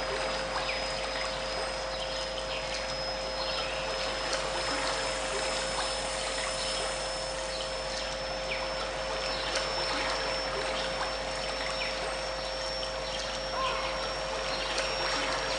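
Trickling, flowing stream water layered with steady pure tones: two mid-pitched tones held close together, a thin high tone that slowly rises, and a low steady drone underneath.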